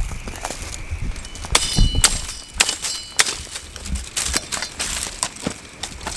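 A hatchet or axe chopping firewood: a string of sharp, irregular strikes, two of which ring briefly with a metallic clang.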